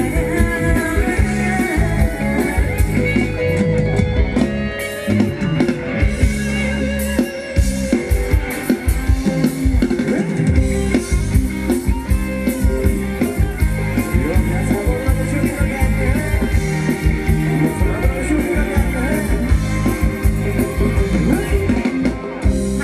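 Live band playing Thai ramwong dance music, with guitar over a drum kit keeping a steady beat.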